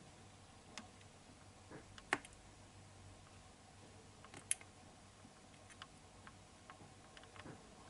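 Leopard gecko chewing a mealworm: faint, sharp clicks and crunches every second or so, the loudest about two seconds and four and a half seconds in.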